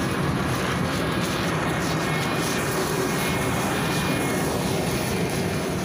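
The rear-mounted Yuchai YC6L280N natural-gas engine of a Volgabus 5270G2 city bus running steadily, heard from close beside the bus as an even low drone.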